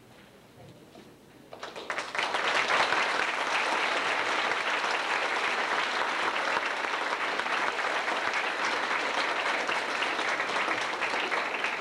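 Audience applauding: dense clapping from a roomful of people that starts about a second and a half in and holds steady.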